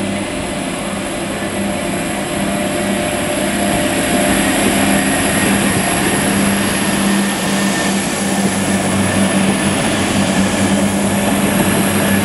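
Class 175 diesel multiple unit pulling away, its underfloor diesel engines running steadily under power with a high-pitched whine above them; the sound grows louder about four seconds in as the train accelerates.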